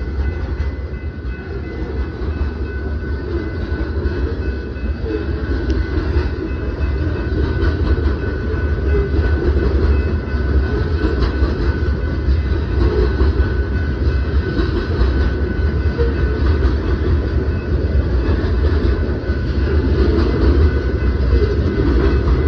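Freight train of covered hopper cars rolling steadily past, wheels running on the rails with a continuous rumble that grows a little louder partway through.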